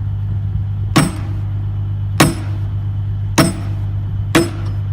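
Four sharp, ringing strikes about a second apart over a steady low engine hum.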